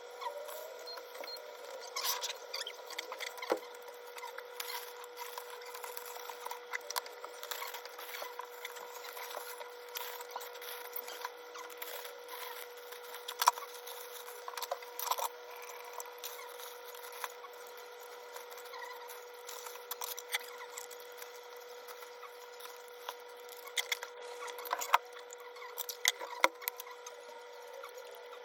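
Kitchen handling sounds: scattered light taps, clicks and rubbing as food is worked on a wooden surface, over a steady faint hum.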